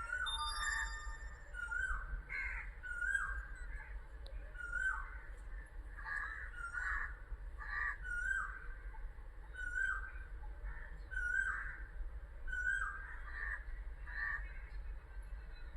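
Birds calling over and over in short, hooked, crow-like calls, about one a second, over a steady low rumble. A few brief high electronic tones sound just after the start.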